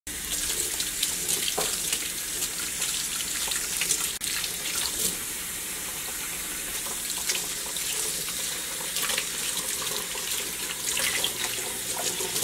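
Water running steadily from a spring pull-down kitchen faucet into the sink as hands are rinsed under the stream, with small splashes.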